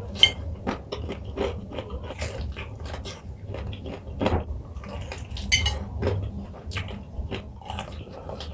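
Close-miked eating of crispy fried chicken coated in hot sauce: bites and chewing, an irregular run of short crunches and clicks.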